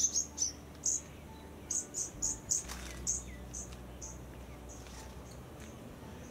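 Rapid, high-pitched animal chirps in short clusters, some sweeping down in pitch, thinning out after the first few seconds.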